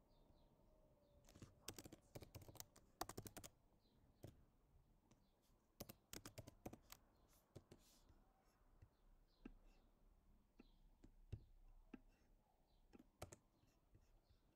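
Faint computer keyboard typing: two quick runs of keystrokes, then scattered single key clicks.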